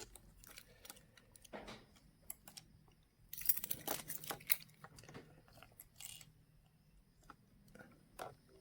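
Irregular small metallic clicks and scrapes of a key nudging the nut in a motorcycle battery's negative terminal into line so the bolt can catch. The busiest run of clicks comes about three to four and a half seconds in.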